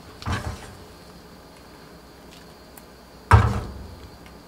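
Two clunks of kitchenware as soup is ladled out of a frying pan on a gas burner: a soft one just after the start, and a louder one about three seconds in that rings briefly.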